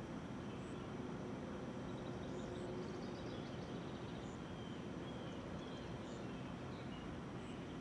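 Outdoor ambience: a steady low background rumble with faint, scattered high bird chirps.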